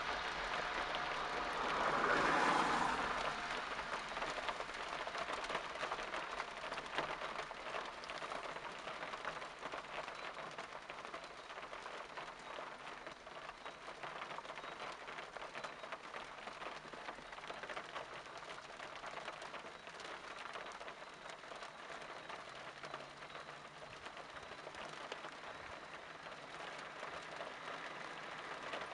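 Boeing 777 jet engines at takeoff power, loudest about two seconds in, then fading into a steady hiss of heavy rain as the aircraft rolls away. The engine noise grows again near the end as the aircraft climbs out.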